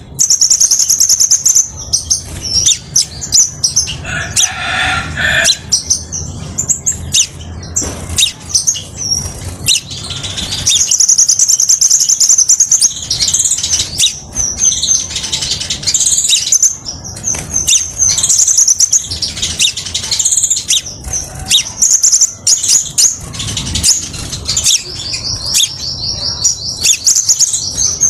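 Crimson sunbird song: a loud, busy run of high-pitched chirps and trills, ending in a fast, even trill. A low rumble runs underneath.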